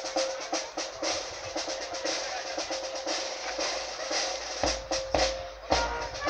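Music with a drum beating fast, even strokes about four a second over one held note; heavier low thumps come in near the end.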